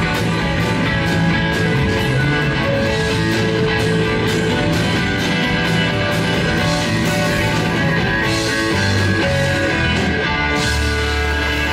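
Live blues-rock band playing, with electric guitar over a steady drum beat with cymbals. A low bass note is held near the end.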